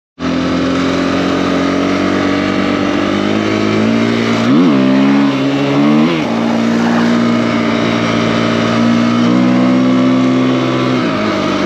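KTM EXC-F enduro bike's single-cylinder four-stroke engine, bored out to 280 cc, running steadily and blipped up and back down twice near the middle.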